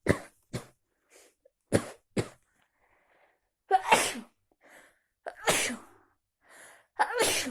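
A person sneezing over and over, about seven sneezes in a row. The first four are short and sharp, and the last three are longer, with quick breaths drawn in between.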